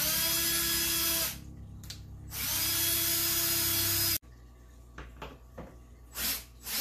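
Cordless drill spinning with its bit in a wooden slat, in two steady runs of about one and two seconds. The second run cuts off suddenly, and a few light clicks follow.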